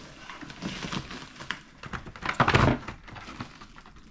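Cardboard boxes being shifted by hand: rustling and scraping of cardboard and packing tape, with a louder scrape and bump about two and a half seconds in.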